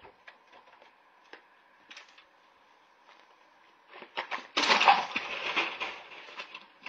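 Faint crunching footsteps on gravel, then about four and a half seconds in a man falls on the gravel with a plastic bucket. It is a loud scraping clatter of body and bucket hitting the stones, lasting about a second and a half before it dies down.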